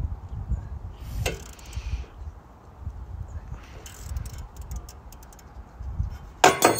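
Hand tools working at the front steering knuckle of a 1990 Honda Accord to pop out its old lower ball joint: scattered metal clicks and clinks over a low rumble, then a quick run of sharp metallic knocks near the end.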